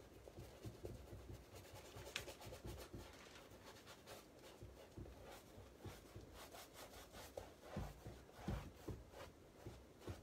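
Faint scratching and rubbing of a paintbrush working paint onto a stretched canvas in many short strokes, with a couple of soft low thumps near the end.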